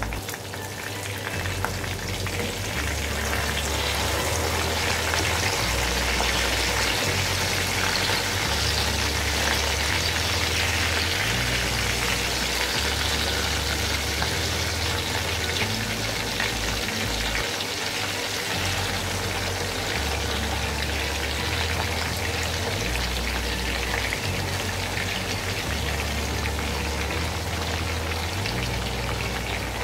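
Tuna steaks frying in hot oil in a pan, a steady sizzle, while the pieces are turned over with a spoon to fry the second side. A low hum sits underneath, shifting in pitch every second or two.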